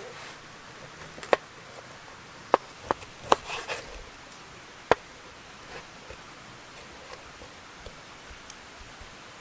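A handful of sharp knocks, irregularly spaced over the first five seconds, with light handling rustle between them.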